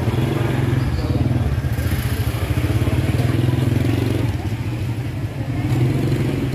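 A motor scooter engine running close by with a steady low hum, easing off a little past the middle and picking up again, with faint crowd voices underneath.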